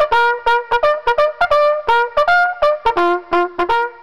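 Solo brass music: a quick tune of short, separate notes, about five a second.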